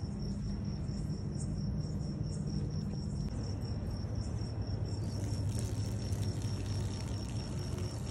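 Crickets chirping in a steady, even series of high pulses, over a low steady hum.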